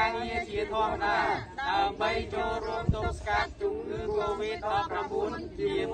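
Several people reciting a pledge together in unison, in Khmer, in a chanting speech rhythm.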